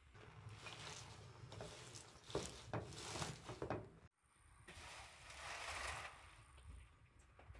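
Fresh spinach leaves rustling and crunching as they are handled and dropped by hand into an aluminium pot, with a few sharp clicks in the middle. The sound cuts out for an instant about four seconds in.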